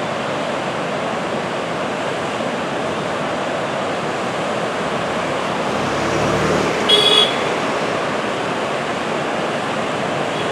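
Sea surf washing steadily on a beach. About seven seconds in, a brief high-pitched sound lasting a fraction of a second cuts through the surf, the loudest moment, with a faint low hum just before it.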